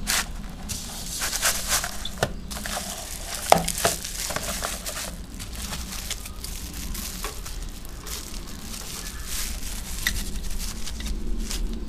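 Packing paper and wrapping crinkling and tearing as a knife is unwrapped by hand, in irregular rustling bursts with a sharper knock about three and a half seconds in.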